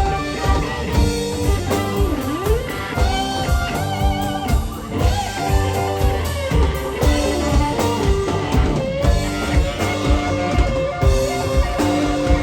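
Live rock band playing an instrumental stretch: electric guitar lines with bent notes over bass and a drum kit keeping a steady beat.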